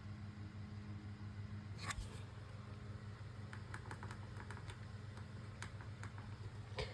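Low steady electrical hum. A single knock comes about two seconds in, then a run of faint, uneven clicks from a fire alarm control panel being worked on during a reset.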